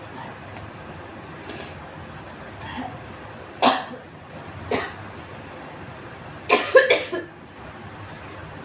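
A woman coughing from a spicy burn in her throat: a hard cough about three and a half seconds in, another about a second later, then a quick run of coughs near seven seconds.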